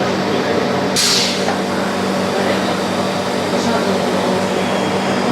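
Steady machinery hum in a workshop, with indistinct voices, and a short hiss about a second in.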